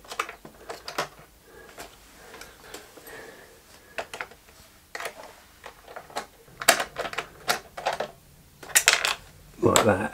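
Irregular clicks and clacks of a screwdriver and small fasteners on a motorcycle's plastic battery cover as it is being undone, with quick runs of clicks about two-thirds of the way through and again near the end.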